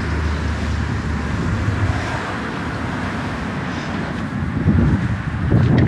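Steady low rumble and hiss of wind on the microphone, growing gustier near the end.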